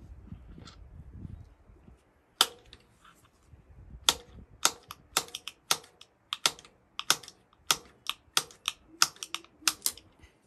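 Ratchet wrench turning the valve guide puller's bolt: a run of sharp metallic clicks, about two to three a second, starting a couple of seconds in, as the cast iron valve guide is drawn out of the Fordson F block.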